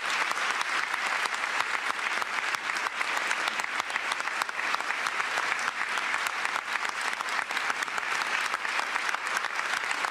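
Large audience applauding: dense, steady clapping that carries on without a break.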